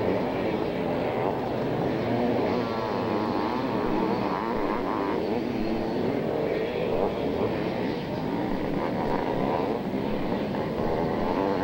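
Several two-stroke 500cc motocross bikes racing, their engines overlapping and rising and falling in pitch as the riders rev and back off.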